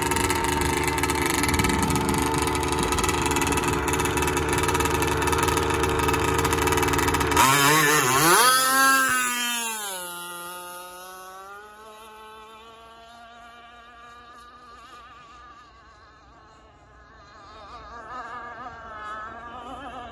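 Enforcer Stingray RC hydroplane's motor running loud and steady close by. About seven seconds in its pitch sweeps up and falls away as the boat throttles off. It then fades to a thin, wavering distant whine that swells again near the end as the boat runs across the lake.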